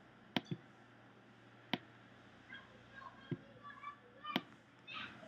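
A handful of single sharp clicks from a computer mouse and keyboard, about five in all, spaced irregularly, as a shape is copied, pasted and moved on screen.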